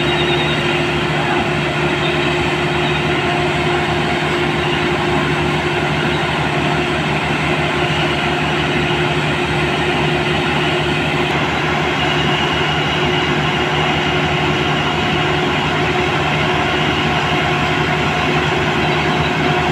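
Heavy engine-driven machinery running steadily: a constant droning hum with a rapid, even low pulsing.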